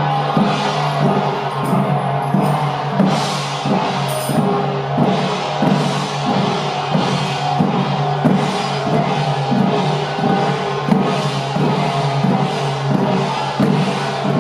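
Temple troupe's hand-held drums and cymbals beating a steady march rhythm, about two strokes a second, over a steady low drone.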